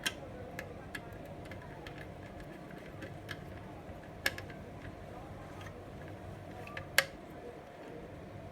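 Scattered small clicks and taps of a screwdriver working the screw terminals of a CCTV power supply as wires are fitted, the sharpest just after the start, about four seconds in and about seven seconds in, over a faint steady hum.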